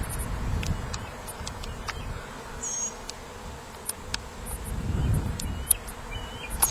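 A swarm of honey bees buzzing as it moves into a swarm trap, with a few short bird chirps.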